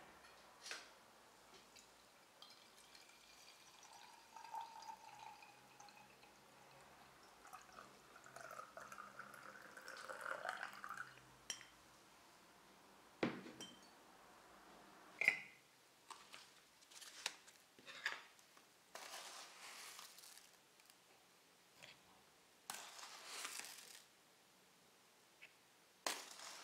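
Stainless steel moka pot being filled and put together: scattered sharp metal clinks, and around the middle water poured in, its pitch rising as the vessel fills. Near the end come short dry rushes as ground coffee goes into the funnel basket.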